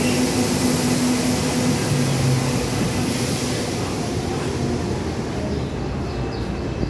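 R142 subway train standing at the platform, running a steady hum with a high hiss; the hum's tones stop and the hiss fades about five seconds in.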